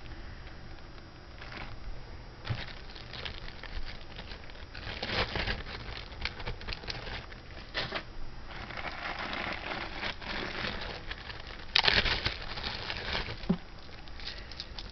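Crinkling of plastic bags and clicking of beads as costume jewelry is handled, in irregular bursts, with a louder stretch about twelve seconds in.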